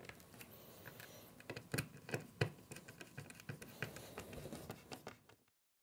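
Handheld screwdriver turning a metal cam dowel into a chipboard cabinet panel: faint, irregular clicks and scrapes of the blade and the threaded dowel biting into the board. The sound cuts off about five seconds in.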